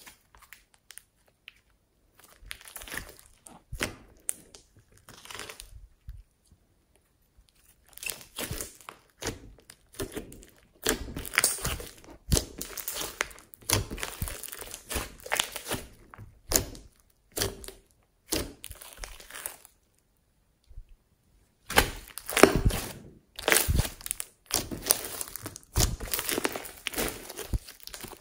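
Hands squeezing, stretching and folding pink glossy slime, giving irregular runs of sticky crackling and popping with a few short pauses.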